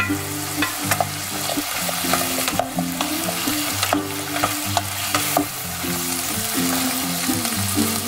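Chopped vegetables sautéing in olive oil in a pot, sizzling steadily while a wooden spoon stirs them, with frequent light scrapes and knocks of the spoon. Background music with low notes that step from one to the next runs underneath.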